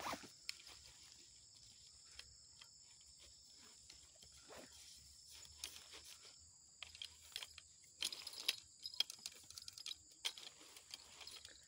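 Night insects keep up a steady high-pitched chirring, with irregular sharp ticks and crackles over it, clustering about eight seconds in.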